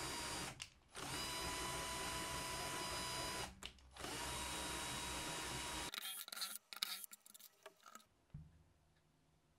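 Power drill turning the adjustment shaft of a 3D-printed router lift in three runs, the second and third each a couple of seconds long. Each run spins up to a steady whine. A few seconds in, clicks and knocks of plastic parts being handled follow.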